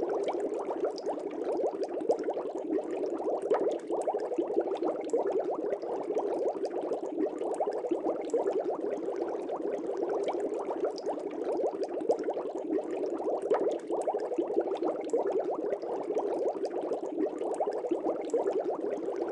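Aquarium water bubbling: a steady, even stream of many small bubble pops.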